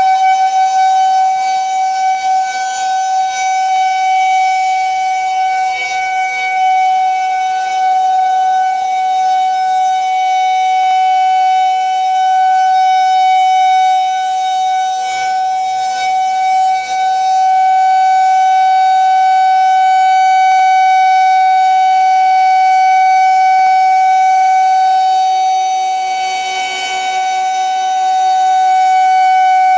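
Federal Signal 2001-130 electromechanical outdoor warning siren sounding a steady tone on test. Its single horn rotates, so the sound slowly fades and swells, dipping toward the end and building again as the horn comes back around.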